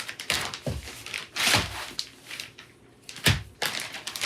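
Handling noises on a workbench: objects being picked up and set down with a few knocks, and fabric or packaging rustling.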